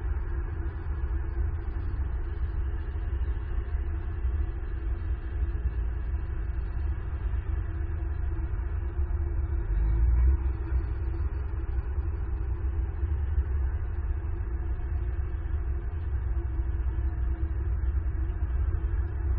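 Steady low outdoor rumble with a faint constant hum, swelling briefly about ten seconds in.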